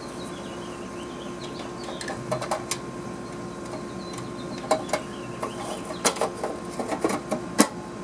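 Clicks and metallic knocks of an outdoor air-conditioner disconnect box being handled: the disconnect block pushed back in to restore power and the metal cover snapped shut, the loudest knock near the end. A steady hum runs underneath.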